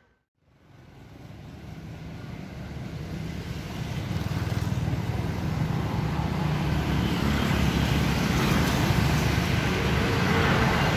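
Road traffic noise with a low engine rumble, fading up from silence over the first several seconds and then holding steady.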